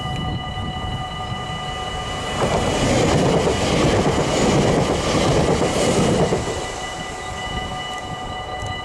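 NS Sprinter electric passenger train passing close by at speed, its wheels running over the rails. The noise swells about two and a half seconds in, stays loudest until about six seconds in, then fades as the train moves away.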